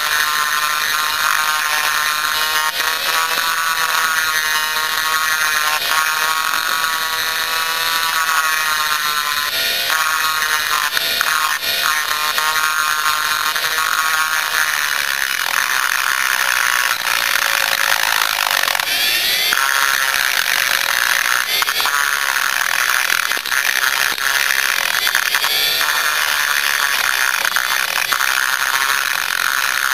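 Dremel rotary tool running at high speed, its burr grinding the cast-aluminium transfer port of a Yamaha Blaster two-stroke cylinder. It makes a steady high whine whose pitch wavers as the bit bites in and eases off, with a brief dip a little past halfway.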